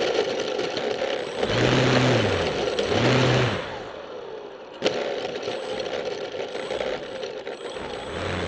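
Electric motor and propeller of an Apprentice S15E model plane, heard from on its wing, running over a steady hum and revved up twice in short bursts, each with a loud rush of air and a pitch that rises then falls. A sharp click comes about halfway through.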